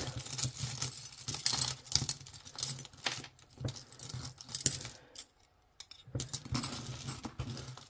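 Metal costume jewelry clinking and jangling as hands rummage through a pile and set bangle bracelets down on a table, with a short pause a little past the middle.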